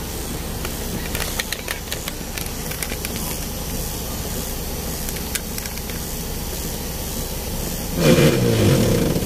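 Vehicle engine idling steadily, heard from inside the cab, with scattered light ticks early on. Near the end comes a louder engine rev, about a second long, that falls in pitch.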